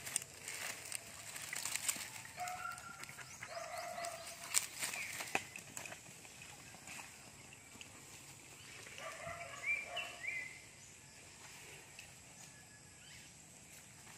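Dry coconut palm fronds rustling and crackling as dogs wrestle on them, mostly in the first half. Short high animal calls come in two spells, about three seconds in and again around ten seconds.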